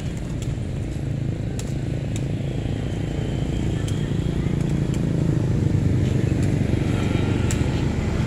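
Steady low rumble of a motor vehicle engine running, growing somewhat louder in the second half.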